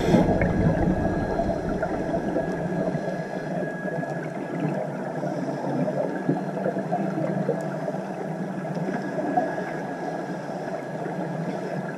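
Underwater ambience: a steady muffled rush of water with a dense fine crackle, and a faint steady high tone running under it.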